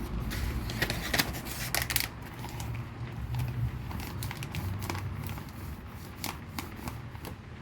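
LEGO pieces clicking and rattling as they are handled and pressed together, a scatter of short sharp clicks, the loudest around a second or two in, over a low steady rumble.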